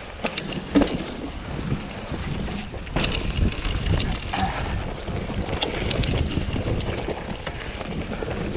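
Wind noise on the microphone and tyre rumble as a Giant Trance full-suspension mountain bike rolls over a dirt and rock trail, with scattered clicks and rattles over bumps and a sharp knock about three seconds in.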